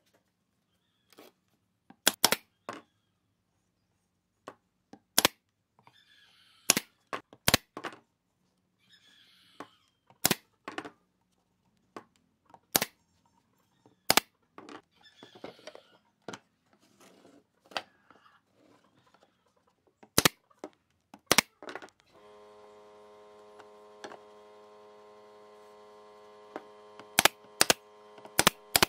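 A pneumatic brad nailer fires single sharp shots at irregular intervals, driving brads into a pine box. About three-quarters of the way through, a steady machine hum starts up underneath.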